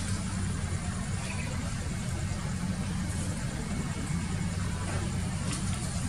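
Steady low background rumble, with a faint click at the very start and another a little before the end.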